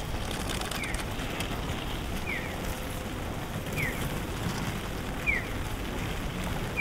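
A Japanese pedestrian crossing signal giving its bird-like electronic chirp: a short falling chirp repeating evenly about every second and a half. Behind it runs a steady rushing noise of wet city streets and traffic.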